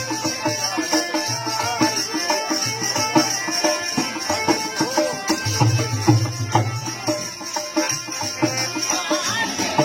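Marwari folk music with a steady hand-drum beat under a wavering melody.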